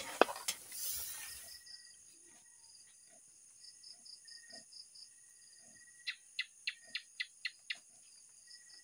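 A wok sizzling with clicks of the spatula for the first second and a half, then a quiet night chorus of crickets trilling high and steady. About six seconds in, a quick run of about seven sharp chirps.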